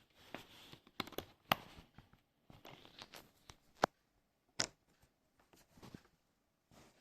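Close handling noises: rustling and scraping broken by several sharp clicks, the loudest about four seconds in.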